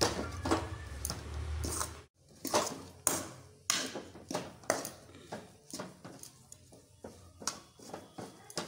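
Steel spoon scraping and knocking against an aluminium kadhai as grated coconut is stirred, about two strokes a second.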